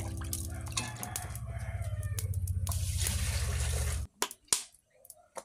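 Background music with a low beat that cuts off about four seconds in, over scattered knocks and clinks from a cooking pot being handled around a clay charcoal stove. After the music stops a few sharp knocks stand out.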